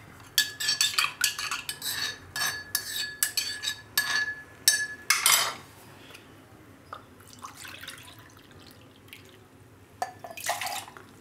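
A spoon clinks and scrapes rapidly around the inside of a metal mortar, stirring water to rinse out crushed garlic, and the mortar rings with each strike. It goes quiet, then water splashes briefly near the end as the garlic water is poured into a measuring cup.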